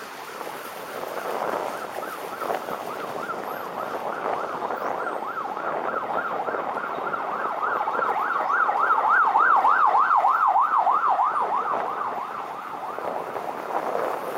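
Emergency vehicle siren sounding a fast rising-and-falling yelp, a few sweeps a second, growing louder as it nears and then fading away, over wind and road noise.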